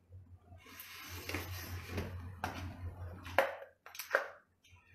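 Mouth noises of eating a boiled lobster piece, then a few sharp clicks as a can's metal pull-tab lid is torn open near the end.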